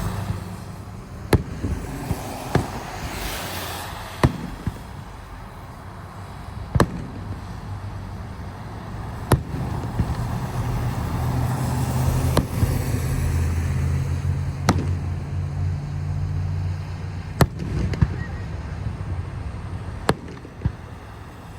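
Fireworks going off, heard as about ten sharp bangs at irregular intervals, a few seconds apart. A low steady hum sits under them for several seconds in the middle.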